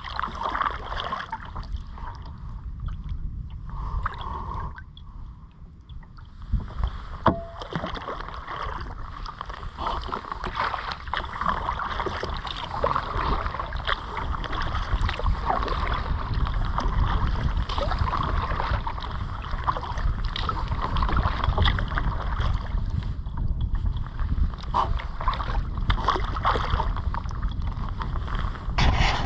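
Kayak on moving water: continuous rushing and splashing water with many small splashes, busier from about seven seconds in. A low rumble of wind runs on the microphone.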